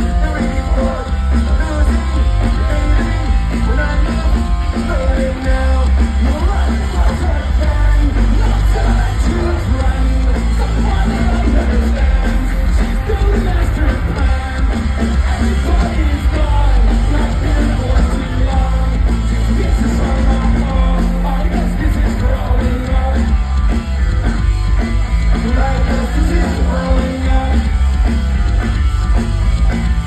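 Live rock band playing loud through a festival PA, with a singer, recorded from within the crowd; a heavy, steady bass and drum low end runs under it.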